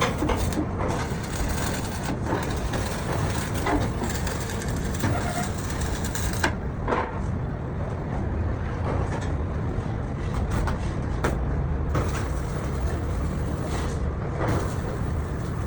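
Steady low rumble of running machinery, with scattered short knocks and clicks.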